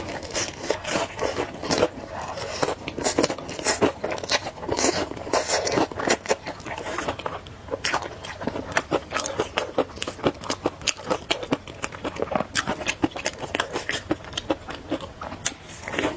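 Close-up eating sounds: crunching and chewing food, with many quick, crisp crackles and clicks in an uneven run.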